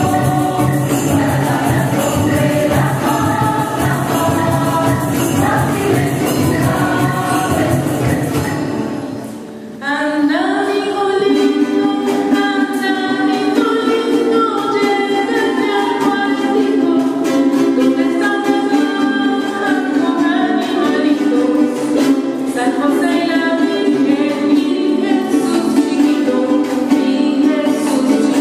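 Mixed choir singing with strummed and plucked guitars and small guitar-like string instruments. The music fades out about nine seconds in, and after a short gap the choir and strings start again.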